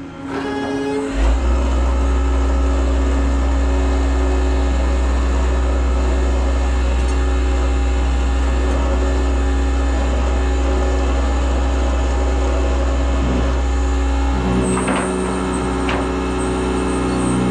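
Tow truck running with a steady deep drone that sets in about a second in and shifts to a different, lighter hum near the end, with a few sharp clicks.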